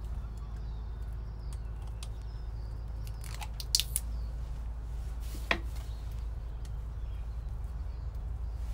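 Plastic grafting film being handled and wrapped around a mulberry scion by hand: a few short crackles near the middle, over a steady low rumble.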